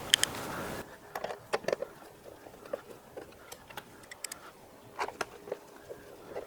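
Scattered light clicks and taps of small screws being driven and plastic display parts handled during reassembly, irregular and quiet, with a steady hiss that drops away about a second in.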